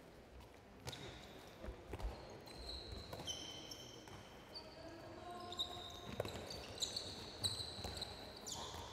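Handball players' shoes squeaking on a wooden court in many short, high chirps from about two and a half seconds in, with scattered thuds of the handball bouncing and being caught.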